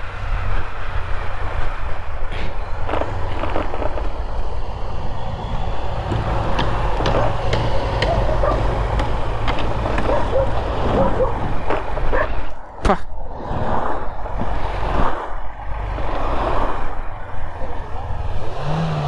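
Honda Hornet 2.0 motorcycle's single-cylinder engine running under way, mixed with steady wind and road noise and passing truck traffic.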